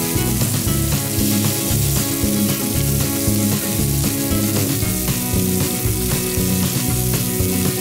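Beef steaks sizzling on a barbecue grill, a steady hiss of searing meat, with background music playing over it.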